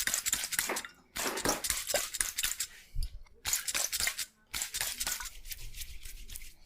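Razor scraping through beard stubble in four crackling strokes of one to two seconds each.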